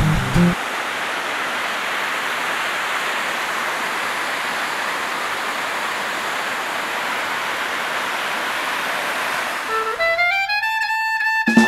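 Waterfall rushing steadily as water cascades down rock ledges, an even hiss without any pattern. Music cuts out about half a second in, and a new tune starts near the end.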